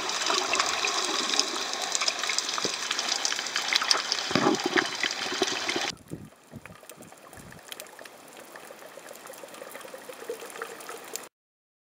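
Water sounds picked up underwater by a snorkeller's camera: a steady hiss dotted with many small clicks. The sound drops much quieter about six seconds in, then cuts to silence near the end.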